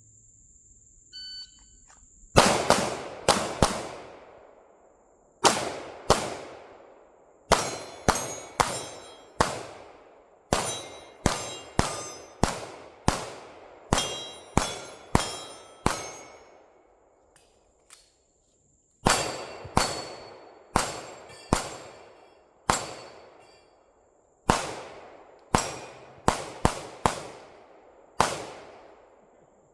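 A shot-timer start beep, then a string of some thirty pistol shots, mostly fired in quick pairs (double taps), with steel targets ringing after hits. The firing stops for about three seconds midway, then resumes.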